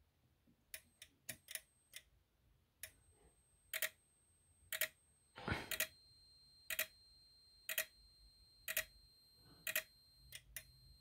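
Relays in a Simplex 4905-9938 SmartSync module clicking as it is powered from 9-volt batteries: a few uneven clicks at first while the battery contact makes and breaks, then a steady click about once a second. A faint high whine sits underneath from about halfway.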